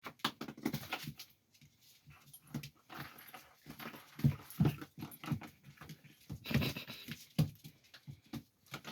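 Six-week-old puppies playing, a string of short, irregular noises and brief cries, loudest about halfway through.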